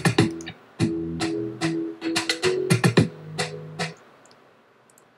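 Instrumental background music with a beat of sharp drum hits over sustained low chords. It stops about four seconds in, leaving near silence.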